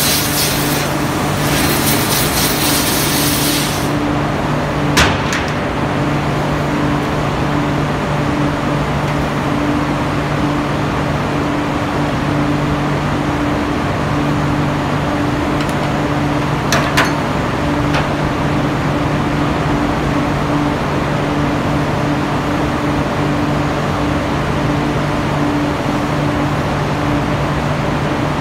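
Steady steelworks machinery hum with a low drone whose upper note pulses on and off. A hiss stops about four seconds in, and there are short sharp metallic clicks about five seconds in and again twice around seventeen seconds.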